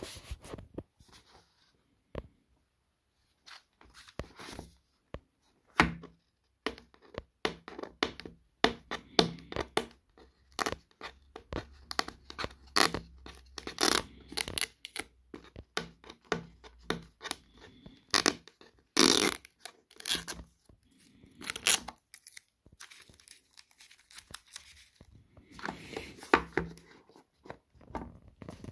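Hands handling a Samsung Galaxy S22 Ultra cardboard box and tearing at its seal: a long run of irregular scrapes, taps and rustles with short pauses between.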